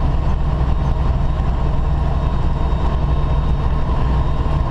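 Semi-truck diesel engine running steadily with road noise, heard from inside the cab while cruising on the highway: a constant low drone.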